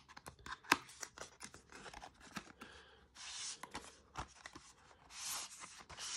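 Paper and thin cardboard packaging being handled: light taps, clicks and crinkles, with two longer rustling swishes about three and five seconds in as a folded paper insert is slid out and unfolded.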